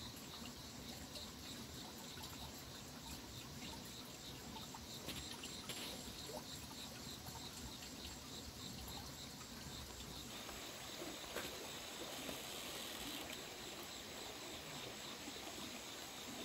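Faint outdoor ambience of insects chirping steadily in a fast, even pulse, over a low hiss.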